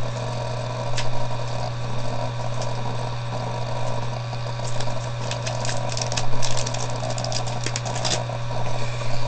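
Crinkling and tearing of a foil Pokémon booster pack wrapper being opened by hand, in quick crackly bursts that are densest from about five to eight seconds in, over a steady low hum.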